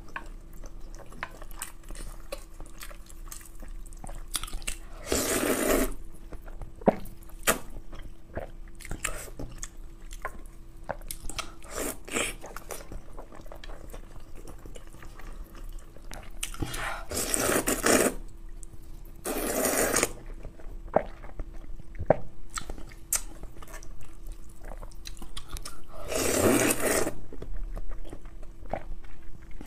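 A person eating noodles in broth with chopsticks: steady chewing and small clicks throughout, broken by four louder slurps of about a second each.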